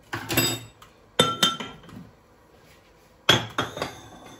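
Spoon clinking against kitchenware in three short runs of sharp strikes, each with a brief ringing tone.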